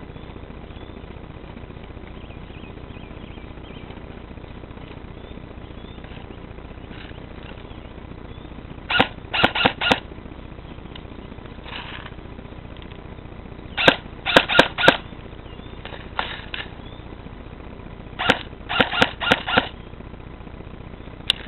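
M16-style rifle firing three short volleys of four or five quick shots each, about nine, fourteen and eighteen seconds in, with a lighter pair of shots between the second and third volleys.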